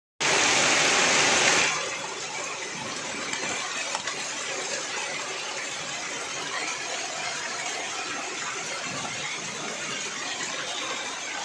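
Hailstorm: rain and hail coming down, a steady hiss with scattered hard ticks of hailstones, louder for about the first second and a half.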